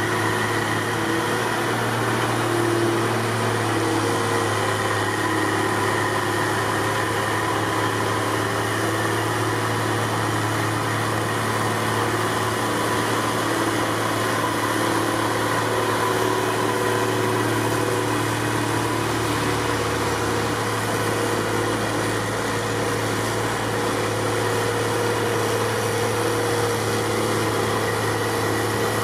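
Heavy diesel engines of snowblower wheel loaders running steadily: a constant, unbroken machine hum.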